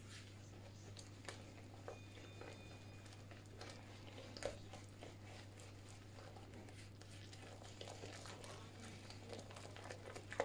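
Fork stirring flour and eggs into a thick batter in a glass bowl: faint scraping and scattered light ticks of the fork against the glass, over a steady low hum.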